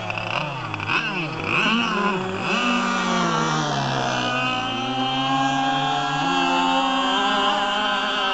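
Radio-controlled racing boat's motor whining as it runs on the water. Its pitch swings up and down in quick sweeps for the first couple of seconds, then holds high and steady.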